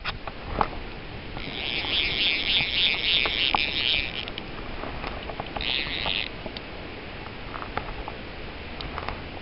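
Fly reel's click-and-pawl drag ratcheting in a rapid run of clicks for about three seconds, then again briefly around the middle, as line is wound in with a brown trout on the line.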